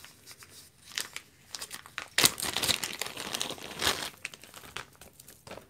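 Crinkly packaging around jewelry being handled and opened: irregular crackling and rustling, loudest about two seconds in and again near four seconds.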